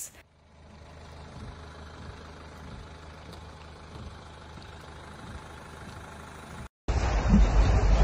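Steady low rumble of outdoor background noise with a few faint knocks. About a second before the end it cuts abruptly to a much louder, steady rushing noise.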